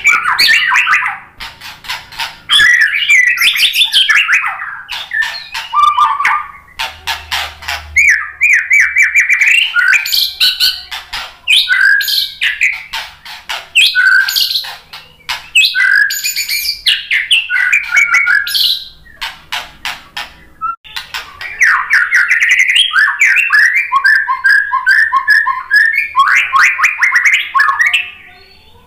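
White-rumped shama (murai batu) singing loudly in a long, varied song of rich whistled phrases and trills mixed with rapid, dry rattling runs, broken by brief pauses between phrases.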